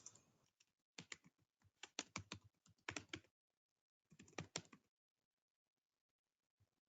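Typing on a computer keyboard: two quick runs of keystrokes, then a pause.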